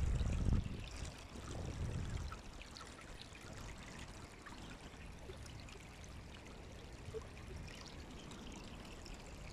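Small creek near its spring head trickling steadily over stones, with a couple of low rumbles in the first two seconds.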